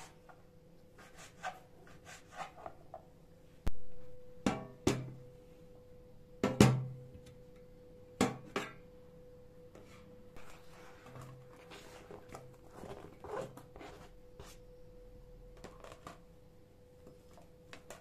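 Kitchen handling sounds: a handful of sharp knocks and clunks, the loudest about six and a half seconds in, with lighter clicks later, as a knife, a plastic cutting board and an air fryer's basket and crisper plate are handled. A faint steady hum runs underneath.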